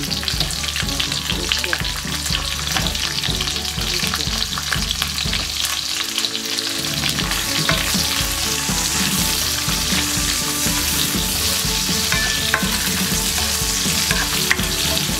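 Chopped onions and garlic sizzling steadily in hot oil in a nonstick wok, stirred with a plastic spoon that scrapes and ticks against the pan.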